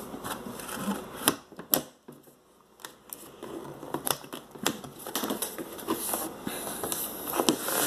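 Olympia Deluxe typewriter and its carrying case being handled and shut: two sharp snaps, like latches catching, about a second and a half in, then a run of light irregular clicks and knocks.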